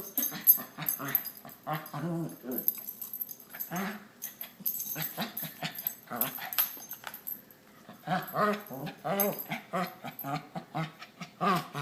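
Two dogs vocalizing in rough play: a continual run of short, pitched yips and whines, many in quick succession, with small clicks between them.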